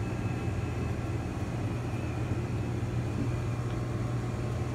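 Steady low mechanical hum of a shop's background machinery, with a faint thin high whine over it.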